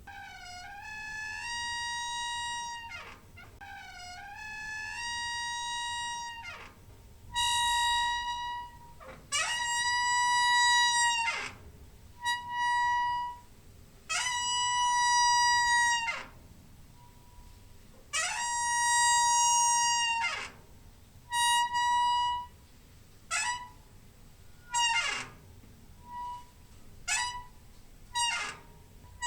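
Door hinge squeaking as the door is swung back and forth: a series of drawn-out, high squeaks of one to two seconds each, some sliding up in pitch as they begin, giving way to shorter, quicker squeaks near the end.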